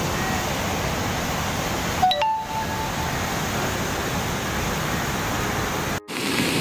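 Steady rushing of fast floodwater, broken by abrupt cuts about two seconds in and near the end.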